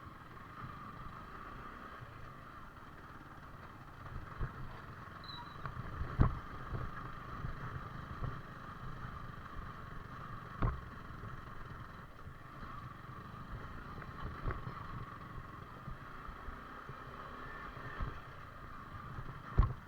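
Yamaha R15 V4 single-cylinder motorcycle engine running steadily on a rough dirt track, with several sharp knocks, the loudest about six seconds in and just before the end.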